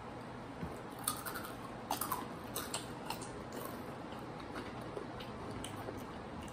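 People chewing crunchy hot chips (Hot Cheetos and Takis): scattered sharp crunches, thickest between about one and three and a half seconds in.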